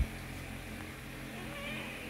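A knock of the phone being handled at the very start, then a steady low background hum, with a faint, short cat meow about three quarters of the way through.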